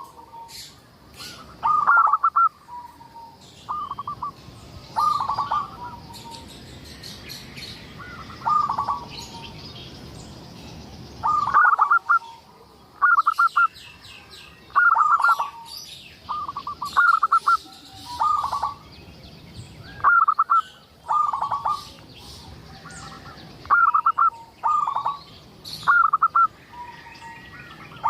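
Zebra dove (perkutut) cooing: short phrases of quick staccato coo notes, repeated every second or so with a pause of a few seconds near the middle. Fainter high chirps of small birds sound behind.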